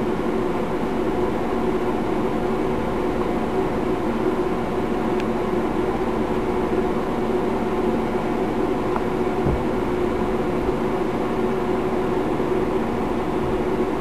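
Microwave oven running with a steady hum, a 60-watt light bulb glowing inside it.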